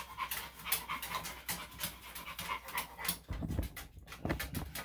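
Small senior Maltese/Shih-Tzu cross dog panting quickly, about three to four short breaths a second, with a couple of heavier low sounds near the end.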